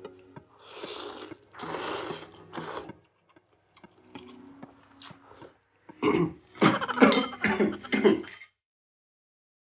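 Loud slurping of spicy curry instant noodles, three long slurps in the first three seconds. About six seconds in comes a burst of coughing, set off by the chilli heat.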